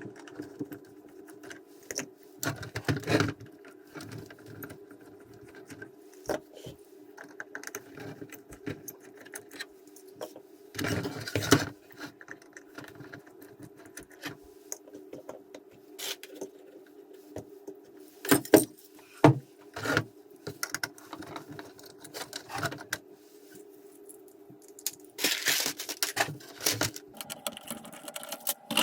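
Small clicks, taps and rattles of plastic parts and small screws being handled as a WPL D12 1:10 RC truck is taken apart, with a few louder clatters, over a steady low hum.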